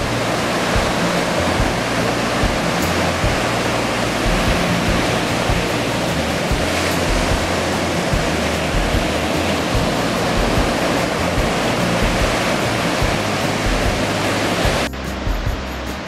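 Surf breaking and washing up a sandy beach: a loud, steady rush of waves at the water's edge, which cuts off abruptly about a second before the end.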